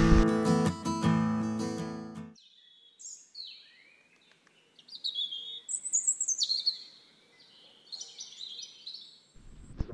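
Acoustic guitar music fading and stopping about two seconds in, then birds chirping: short high calls, several falling in pitch, scattered through the rest.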